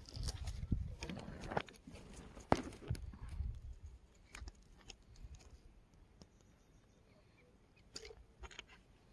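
Hand crumbling and squeezing dry flour bait on a woven plastic sack: faint, irregular crunching, crinkling and rustling for the first few seconds, then mostly quiet with a few small clicks.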